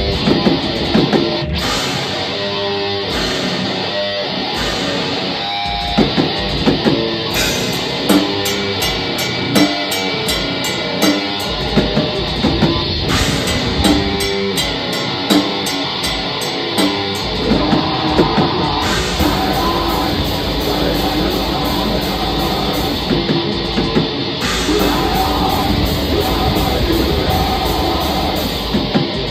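Live black metal band playing: distorted electric guitars over a drum kit, with sharp regular accents at first, then the low end and drums fill in to a dense, steady wall of sound a little past the middle.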